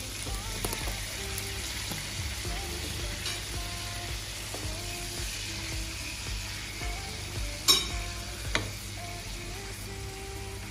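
Chicken pieces sizzling steadily in an open double-sided grill pan. A metal fork knocks sharply against the pan twice, about three-quarters of the way through, as the pieces are turned.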